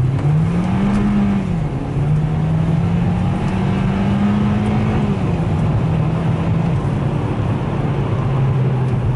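Hyundai Elantra's 2.0-litre petrol engine pulling the car along under an automatic gearbox. Its pitch rises over the first second and drops about a second and a half in, as an upshift would make it, then holds steady and steps down again near the seven-second mark.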